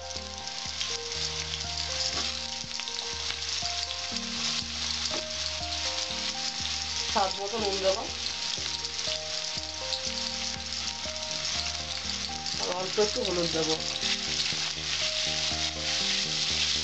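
Potato cubes sizzling steadily as they fry in hot oil in a steel kadai, turned with a spatula near the end.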